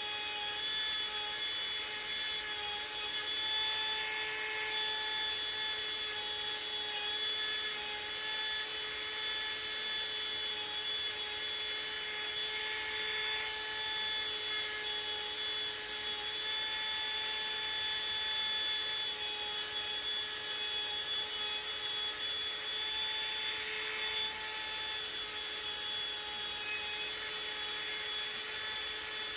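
A small electric motor runs steadily with a constant whine, over a scratchy sound of Tulsi wood being worked.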